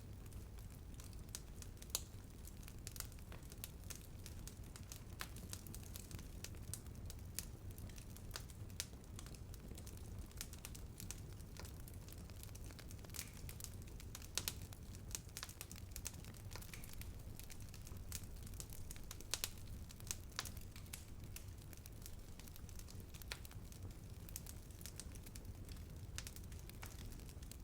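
Wood fire burning steadily with irregular sharp crackles and pops over a low rumble, a few louder pops scattered through.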